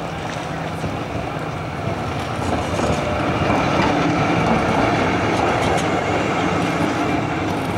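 Articulated electric street tram passing close by on its rails. The sound of its wheels on the track swells about halfway through as the car draws alongside, then eases a little.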